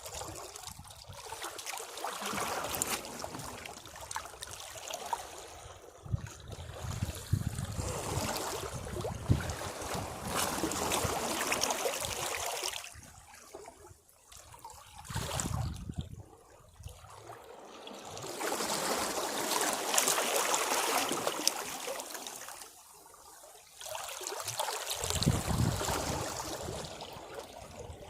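Sea waves washing against rocks, each surge rising to a hissing, splashing wash and draining away, about five surges with short lulls between.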